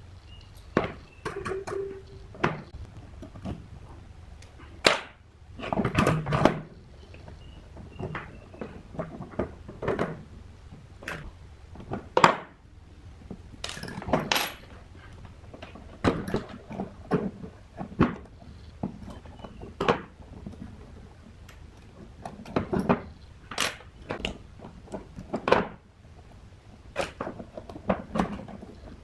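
Brass pendulum-clock movement being reassembled by hand on a wooden bench: irregular light metallic clicks, taps and knocks as gears, arbors and pillars are fitted into the plates and parts are set down, some with a brief ring.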